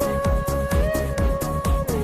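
Electronic dance music: a driving kick-drum beat, about four beats a second, under held synth notes, with no vocals.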